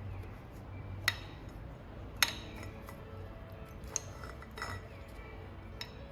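Sharp metallic clinks of metal tools and parts being handled and set down, a handful of separate knocks with a short ring after each, over background music.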